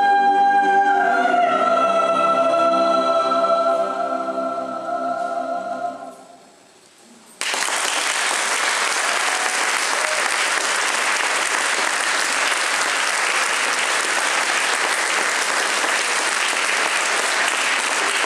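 A mixed choir holds its final chord, which moves once about a second in and dies away around six seconds in. After a moment's quiet, the audience suddenly breaks into steady applause.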